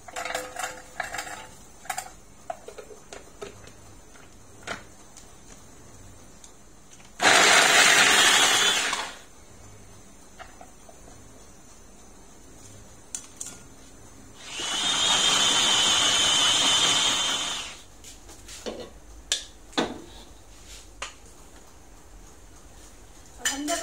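Small electric food chopper running in two bursts, about two seconds and then about three seconds, chopping tomatoes, shallots and garlic for sambal; the second burst carries a higher whine. Light knocks and clatter of the glass bowl and lid come before, between and after.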